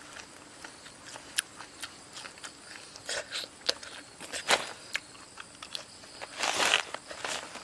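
Ripe jackfruit being pulled apart and eaten by hand: sticky pulp and fibrous strands tearing, with scattered small crackles and clicks and a longer rustle near the end.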